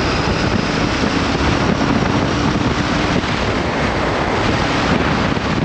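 Steady wind rushing over the microphone on a moving motorcycle, with the Bajaj Pulsar NS200's engine running underneath as a faint steady low hum.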